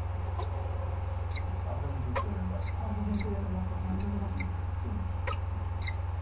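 Steady low electrical mains hum from the webcam's microphone line, with scattered short sharp clicks and ticks.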